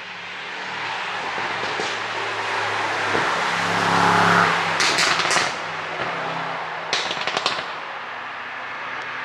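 Mercedes-AMG S63 Coupe's twin-turbo V8 exhaust building up on the throttle, then letting off with a rapid burst of pops and crackles about five seconds in and another burst about two seconds later. These overrun pops come from an ECU pop-and-crackle tune.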